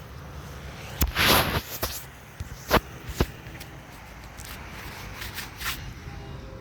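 Handling noise on a phone's microphone: a few sharp knocks and a brief rubbing swish, then softer taps, over a steady hiss of heavy rain.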